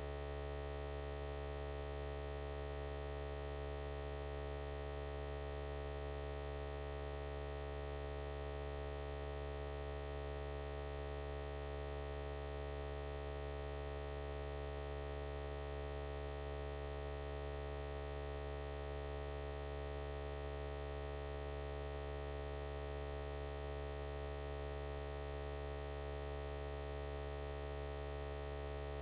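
Steady electrical hum: a low drone with several higher steady tones above it, unchanging and with no speech.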